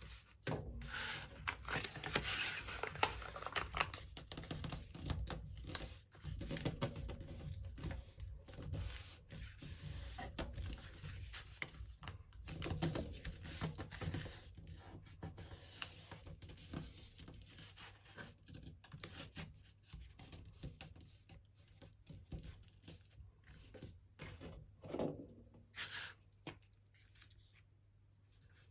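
Paper and thin cardboard being handled: irregular rustling, crinkling and tearing sounds with small knocks, busy at first and thinning out towards the end.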